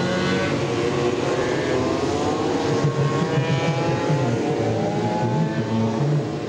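Several Honda RC30 motorcycles with 750 cc V4 engines running together on a race track, several engine notes at once, their pitch rising slowly as the bikes accelerate.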